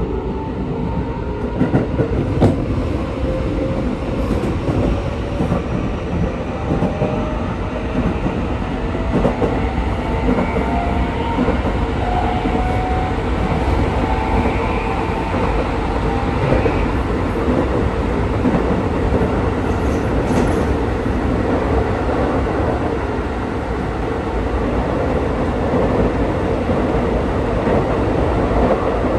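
Keikyu 1000-series electric train accelerating, its traction motors and inverter whining in several tones that rise slowly over the first fifteen seconds or so, then running on at speed over a steady rumble of wheels on rail with occasional clicks of rail joints. The set mixes motor sounds, with cars 1 and 5 refitted with equipment that sounds different.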